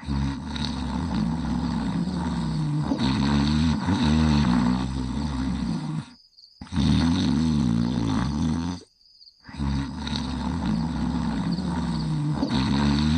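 Low, drawn-out snoring with a wavering, rattling pitch, one long snore every few seconds. It is broken twice by brief cuts to dead silence, about six and nine seconds in.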